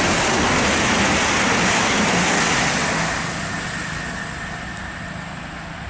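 CrossCountry Class 220 Voyager diesel-electric multiple unit passing through the station at speed: loud engine and wheel noise that fades as it goes away, from about three seconds in.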